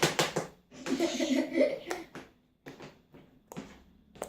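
Child laughing: a quick run of ha-ha bursts at the start, then a longer laugh about a second in, followed by a few light taps.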